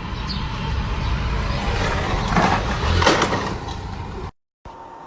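Car and street traffic noise heard from inside a car: a steady low rumble, with two louder rough bursts about two and three seconds in. It cuts off suddenly just past four seconds, and a faint hiss follows.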